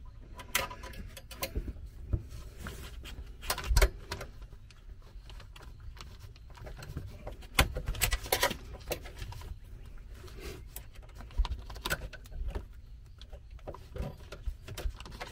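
Irregular small clicks, scrapes and knocks of an Allen wrench and fingers working a ground wire into the screw terminal under an RV converter charger, with louder clusters near four and eight seconds in.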